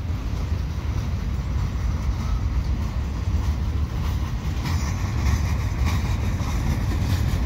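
Freight train's boxcars rolling slowly past: a steady low rumble of steel wheels on the rails. It grows a little brighter and louder in the second half.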